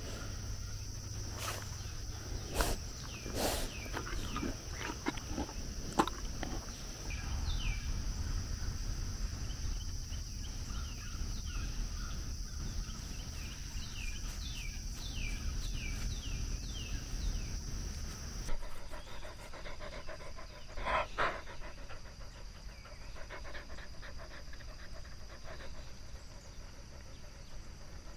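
A dog panting, with a steady high drone and a scattering of clicks and short falling chirps behind it; the background changes abruptly about two-thirds of the way through.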